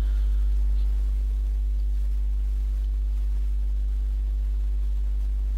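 Steady low electrical hum with a row of evenly spaced overtones above it, unchanging throughout.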